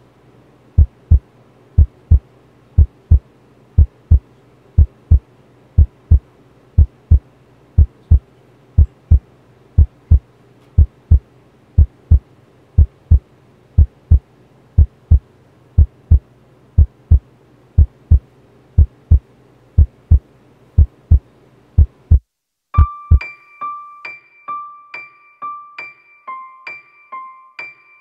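Heartbeat sound effect: deep double thumps, lub-dub, about once a second. About three quarters of the way in it cuts off, and a light electric-piano melody of high, evenly spaced notes begins.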